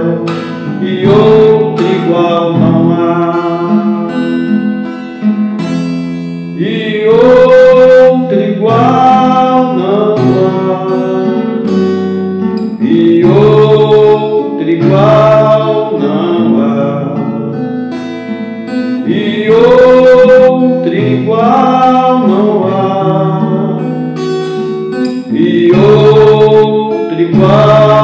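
A man singing a gospel worship song, accompanying himself on a strummed acoustic guitar, with the sung phrases swelling in loudness every few seconds.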